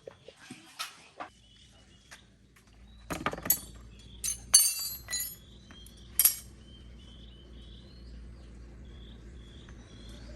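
Metal tools and parts clinking and knocking against each other in a cluster of sharp strikes, some with a short ring, loudest about three to six seconds in. A steady low hum runs underneath, and a short high chirp repeats about twice a second in the second half.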